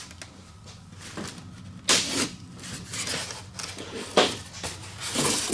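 A taped polystyrene foam packing box being pulled apart and its lid lifted off: tape tearing and foam rubbing against foam, with sharper scrapes about two seconds in and again just after four seconds.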